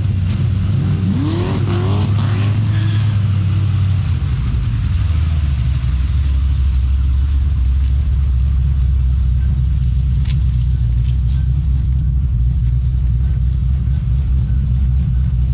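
Car engine running steadily with a deep, continuous note that drops lower about four seconds in.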